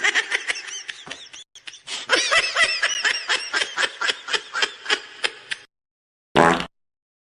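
A laughing sound effect: a high-pitched snickering laugh made of quick pulses for about six seconds, followed by a short separate burst of sound near the end.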